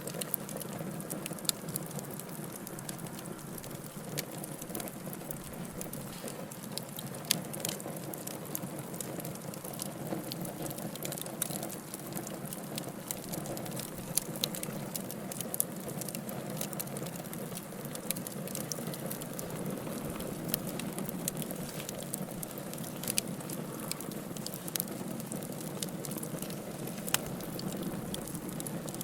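Wood fire burning in a fireplace: a steady low rush of flame with constant small crackles and an occasional louder pop.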